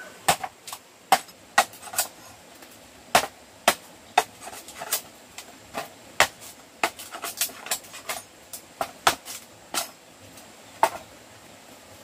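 An irregular series of sharp knocks, about two dozen, uneven in spacing and loudness.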